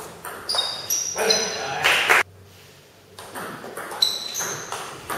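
Table tennis ball struck by rubber bats and bouncing on the table in a rally, sharp clicks with a short high ring echoing in the hall, over and over. A loud voice shouts about a second and a half in, as the point ends, and a new rally's ball hits start about four seconds in.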